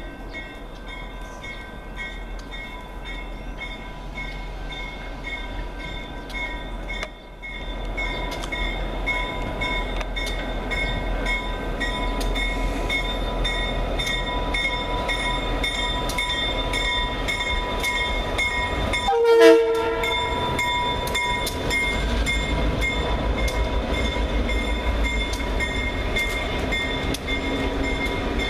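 Norfolk Southern diesel freight locomotive running as it hauls a train of freight cars past, a steady rumble with a thin high whine over it. The sound breaks off briefly about seven seconds in and comes back louder. A single short horn blast sounds about two-thirds of the way through.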